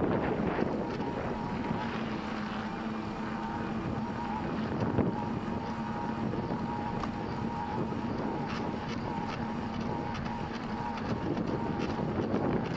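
Bicycle rolling along a paved path, with tyre and wind noise and a steady, even-pitched hum throughout, plus a few faint ticks.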